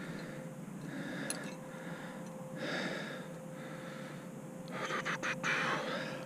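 A rock climber breathing hard on a strenuous lead, one breath every second or two. Near the end come a few sharp clicks of metal climbing gear.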